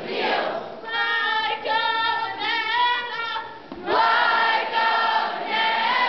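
A group of voices singing together in unison, holding long high notes with a slight waver. The first note begins about a second in, and the second starts about four seconds in with an upward slide.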